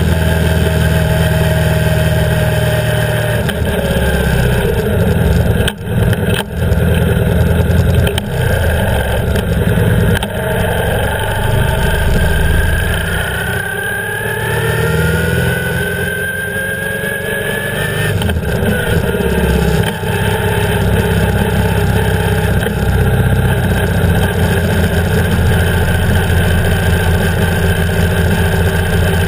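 BMW R 1150 GS's air-cooled boxer twin running under way, heard close up from beside the engine. The sound dips briefly twice about six seconds in, and its pitch climbs steadily for several seconds in the middle as the bike accelerates.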